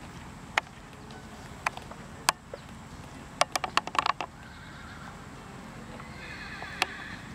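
A horse whinnying: a wavering call of about a second near the end. Earlier come a few scattered sharp clicks and a quick run of clicks around the middle.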